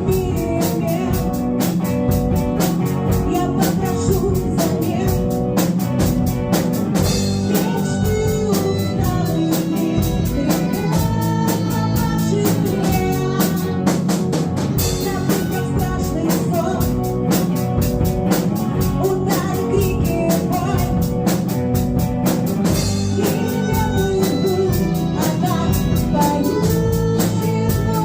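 A rock band playing a song: a drum kit keeps a steady beat under guitars, with singing.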